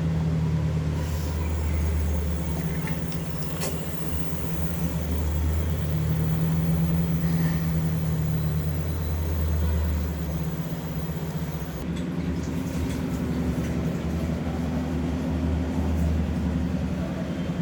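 A refrigerator compressor running with a low hum that swells and eases every few seconds.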